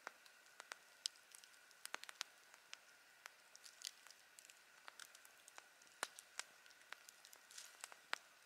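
Campfire burning, the wood crackling in irregular sharp snaps and pops over a faint steady hiss.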